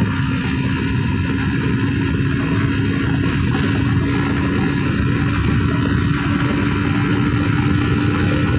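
Bajaj Pulsar NS200's single-cylinder engine running hard at high speed in top gear: a steady drone that creeps slightly higher in pitch, under heavy wind and road noise.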